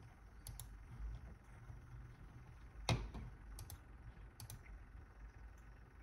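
Sparse light clicks and taps, several in quick pairs, with one louder knock about three seconds in, over a faint low hum.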